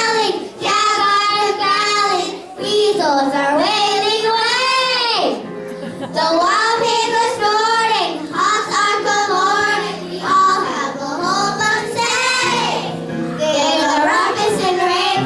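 Young voices singing a song with musical accompaniment, in phrases with short breaks between them.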